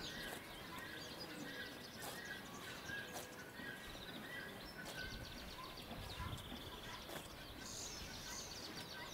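Faint outdoor ambience with a small bird chirping the same short note over and over for the first few seconds.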